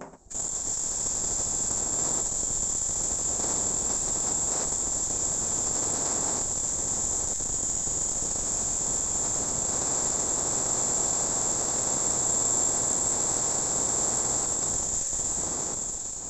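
Handheld angle grinder running steadily with a high-pitched whine, its disc grinding a small piece of wood into shape. It starts suddenly just after the beginning and winds down right at the end.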